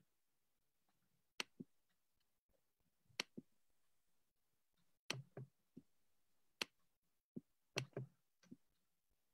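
Near silence broken by a dozen or so faint computer mouse clicks, several of them in quick pairs.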